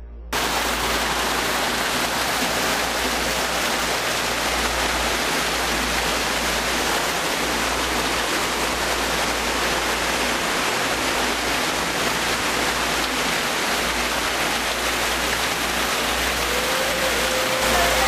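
Waterfall: thin streams of water falling down a mossy rock face and splashing onto the rocks below, a steady rush of falling water. It cuts in suddenly about half a second in.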